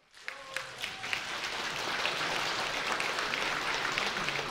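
Audience applauding, the clapping building up within the first second and then holding steady.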